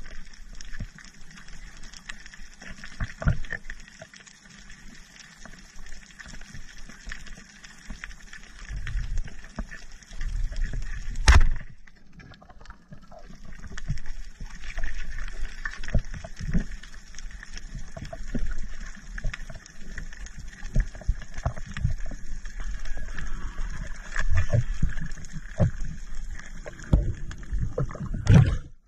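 Underwater sound of a spearfishing dive: water movement with scattered clicks and knocks, and one sharp, loud crack about eleven seconds in as the band speargun is fired.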